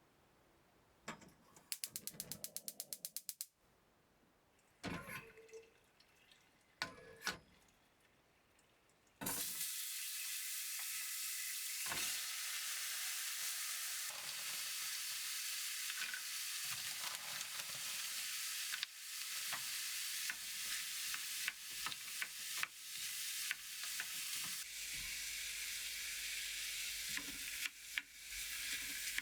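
A quick run of even clicks and a few knocks, then about nine seconds in food hits a hot pan and sizzles steadily while it is stirred, with small scrapes and taps over the sizzle.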